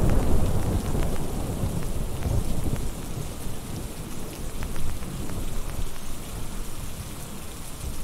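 Thunder rolling and slowly dying away over steady rain, the rumble swelling once or twice before fading.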